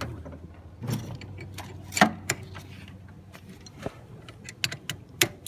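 Scattered metallic clicks and clinks of hand tools and fitting hardware as the AC line fittings are fastened to a newly installed AC compressor, the sharpest clink about two seconds in.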